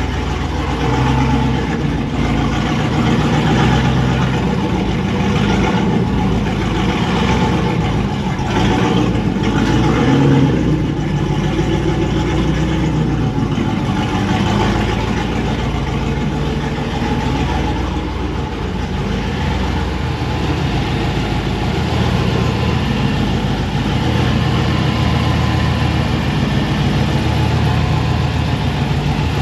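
The supercharged V8 of a Chevrolet Silverado, fitted with a new cam and an LT4 blower, idling steadily. It is running without its proper tune yet.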